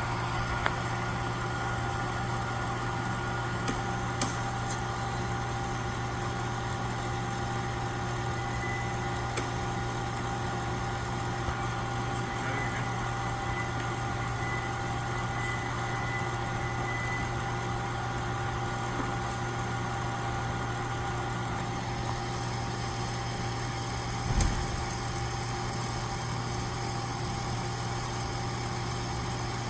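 Steady machine hum with a low drone and a few faint constant tones, broken once by a short low thump about three quarters of the way through.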